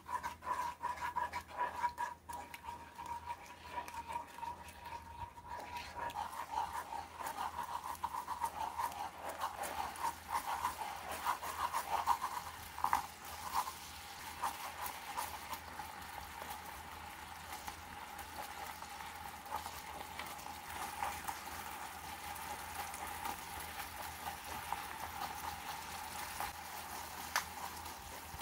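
Gochujang, sugar and garlic seasoning sizzling in oil in a nonstick wok over low heat while a wooden spoon stirs and scrapes through it. From about six seconds in the crackling thickens as sliced whole garlic cooks in the bubbling red sauce.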